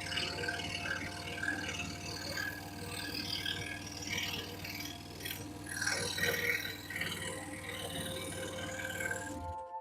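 Excalibur EX21 scroll saw running steadily, its blade reciprocating and cutting through a piece of wood flooring, with an irregular rasp and rattle over the motor's hum.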